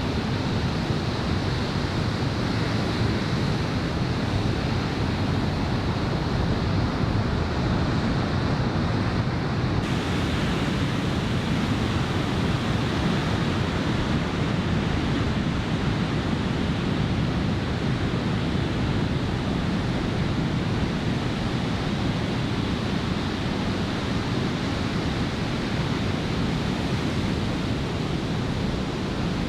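Steady roar of surf from a typhoon swell breaking on the beach, mixed with onshore wind buffeting the microphone. The hiss grows a little brighter about a third of the way in.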